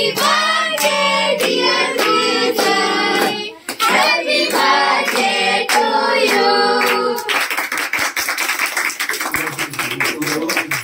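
Voices singing a song with hands clapping in time; about seven seconds in the singing stops and it turns into loose applause.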